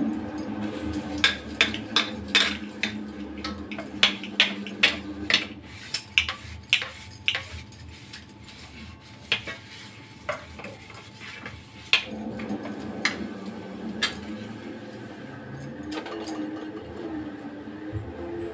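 Metal kitchenware clinking and knocking: a quick run of sharp taps, two or three a second, for about six seconds, then a few scattered knocks, over a low steady hum.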